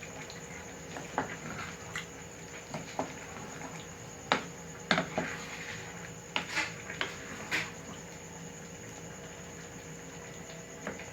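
Thick tomato sauce with sausages simmering in a pot, bubbles popping in irregular sharp blips over a steady low background.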